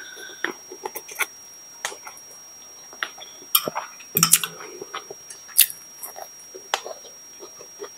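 Close-miked eating: slurping and chewing instant noodles, with scattered short clicks from a metal fork against a glass bowl. Near the end comes a bite into a crispy fried nugget.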